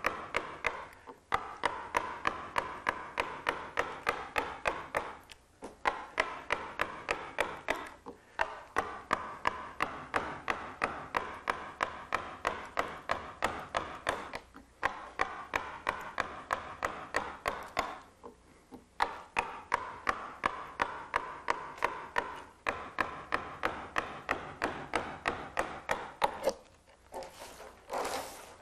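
Round carving mallet striking a wood-carving gouge, driving it through the wood in a steady run of sharp taps, about three a second, with short pauses between runs, while roughing a relief carving down to depth. Near the end the taps stop and there is a brief rustling sound.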